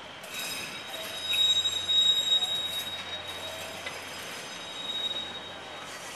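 Heritage passenger coaches of the White Pass & Yukon Route rolling past, their steel wheels squealing on the rails in a high, steady tone that is loudest about one to two and a half seconds in and fades away near the end.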